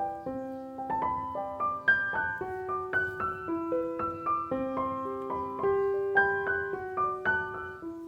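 Background piano music: a gentle melody of single notes struck one after another, each note ringing on.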